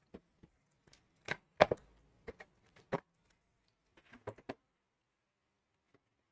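A scatter of short, sharp knocks and clicks, about a dozen over four and a half seconds, the loudest about one and a half seconds in, then quiet.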